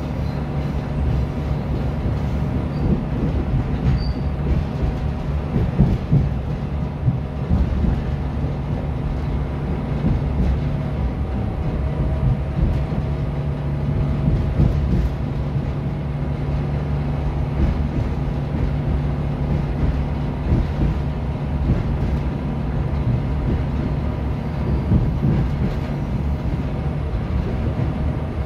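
Inside the RA2 diesel multiple unit under way: a steady diesel engine hum with the rumble of wheels on the rails.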